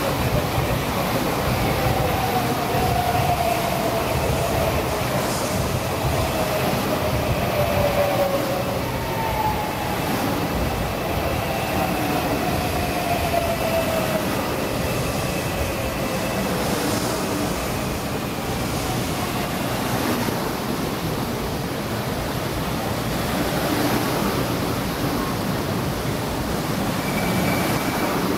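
Tokaido Shinkansen 300-series train pulling into the platform and braking: a steady rumble, with the whine of its VVVF inverter drive falling in pitch as it slows.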